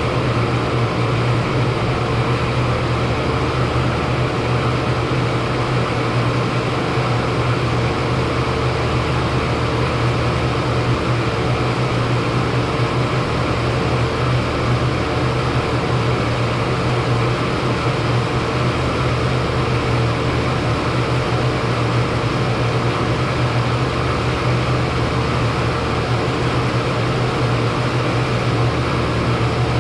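A 40-ton Trane rooftop HVAC unit running steadily: a constant hum from its fans and compressor, with a whirring rush of air and no change in pitch or level.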